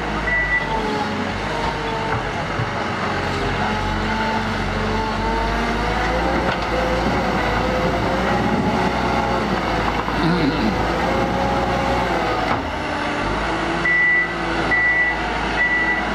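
Komatsu wheel loader's diesel engine running and revving up and down as it works the bucket into a dirt pile. Its reverse alarm beeps steadily for a moment at the start and again near the end as the machine backs up.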